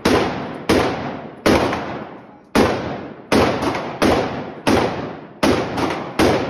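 A steady string of gunshots in an indoor shooting range: nine shots, about three every two seconds. Each shot rings on in the range's echo.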